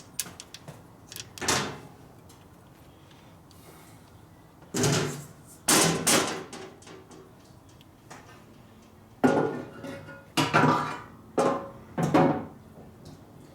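Metal parts and hand tools clanking and clattering in a series of separate knocks, several with a short metallic ring. They come in bunches: one burst early, two about halfway through, and four close together near the end.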